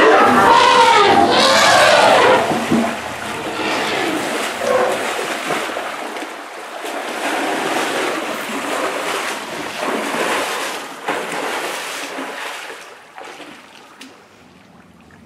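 Wet mud and water splashing and sloshing as an African elephant thrashes in the muddy edge of a waterhole and then wades off. It is loudest at the start, with wavering voice-like sounds in the first two seconds, then comes in irregular splashes that fade toward the end.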